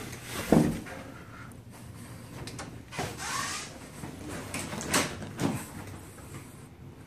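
Hotel room door and people moving into the room: a heavy thump about half a second in, a sharp click near three seconds followed by a short rustle, and two more thumps around five seconds.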